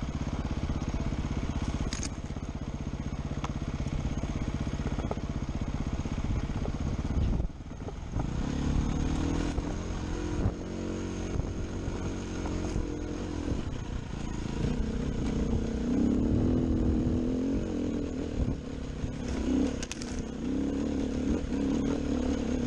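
Dirt bike engine running under the rider at a steady pitch. About a third of the way in it drops off for a moment, then pulls harder, its pitch rising and falling as it works up a steep, rocky trail.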